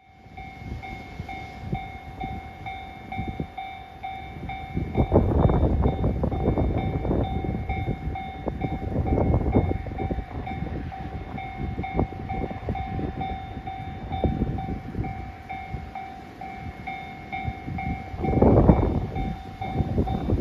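A railway level-crossing warning bell ringing in a regular, rapid pulse as a train approaches, with loud gusts of rumbling noise at intervals.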